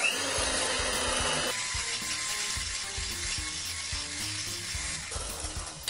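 Electric hand mixer running, its beaters whisking thin cake batter in a glass bowl. The motor noise is heaviest for the first second and a half, then runs steadily and cuts off just before the end.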